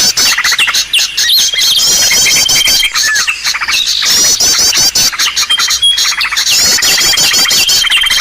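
Bird-lure recording of small birds' calls layered together: a fast chattering trill, quick runs of high chirps and a held high whistle, the whole pattern repeating about every four seconds as a loop.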